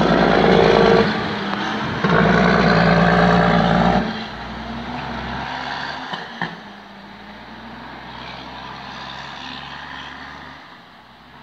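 International cabover dump truck's diesel engine pulling away with a load, loud for the first four seconds with a brief drop about a second in, then fading as the truck drives off.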